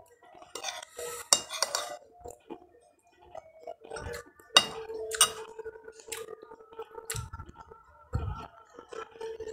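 Dishes and cutlery clinking at a meal: a few sharp, irregular clinks, the loudest about a second and a half in and again around four and a half and five seconds in.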